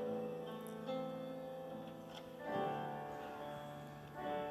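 Slow instrumental backing music: sustained chords that change every couple of seconds.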